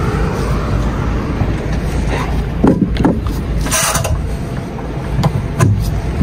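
Steady low rumble of a DAF XF truck's diesel engine running, with a few short knocks and clatters. The loudest is a brief hiss-like burst about four seconds in.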